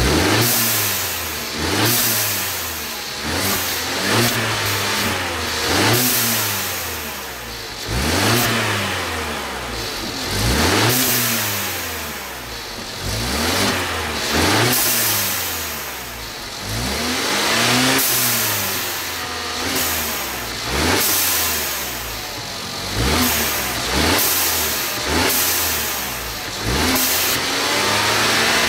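Mercedes-Benz CLA 250's turbocharged 2.0-litre four-cylinder blipped repeatedly from idle, rising and falling about every two seconds. Each rev carries a rushing hiss from the diverter valve venting boost, made louder by an aftermarket TurboKits DV spacer.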